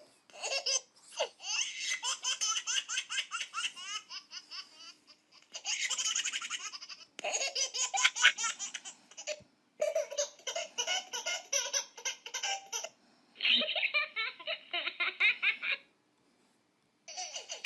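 A baby laughing in quick, rhythmic belly laughs, in about five separate stretches joined one after another with short breaks between them.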